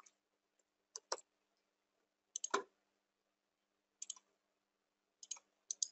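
Faint, scattered clicks of a computer mouse and keyboard keys, coming in small groups of two or three a second or so apart.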